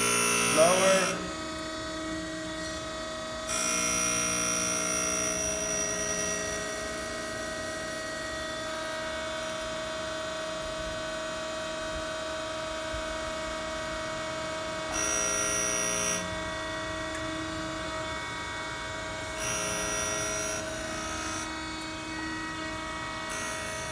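Harig 618 hydraulic surface grinder running with a steady motor hum. A louder hiss comes every few seconds, near the start, about four seconds in, around fifteen and twenty seconds, and near the end, as the table's hydraulic traverse carries the workpiece under the grinding wheel.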